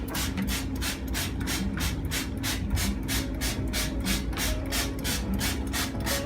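Scrub brush scrubbing the microwave's door panel in quick back-and-forth strokes, about four to five a second, rhythmic and even.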